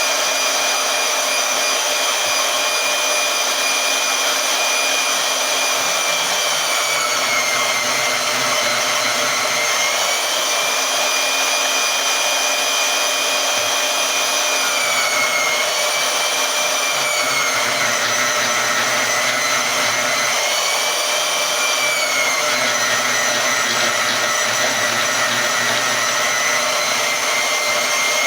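Harbor Freight portable band saw running steadily as it cuts through 1/4 inch metal with 3-in-1 oil on the blade, its motor whine dipping in pitch several times as the blade loads up. The cut is tough for the saw, but it gets through.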